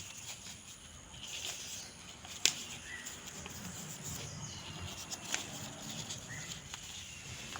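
Sheet of paper rustling and creasing as it is folded by hand into an origami crane, with a couple of sharp clicks.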